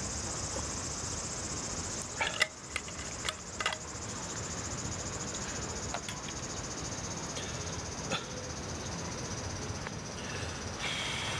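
Steady high-pitched chorus of insects chirring, with a few sharp knocks and clinks about two to four seconds in and another near the end.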